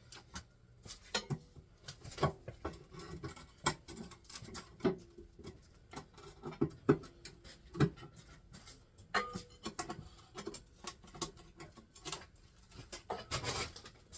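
Irregular metallic clinks and knocks of hand tools, sockets and loose parts against a Chevy 350 small-block being taken apart, some strikes ringing briefly.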